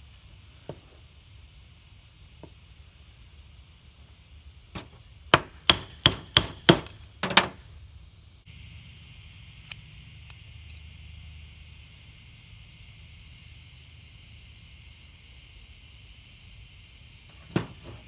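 A quick run of about seven sharp knocks as a knife chops chips from an oak spindle, between about five and seven and a half seconds in, with a few lighter taps around it. A steady insect chorus buzzes underneath, and a second, higher buzz joins about halfway.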